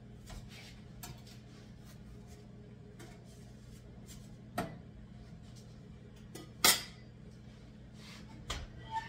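A spatula clinking and scraping against a stovetop griddle as English muffins are lifted and turned: a few sharp clacks, the loudest about two-thirds of the way through, over a steady low hum.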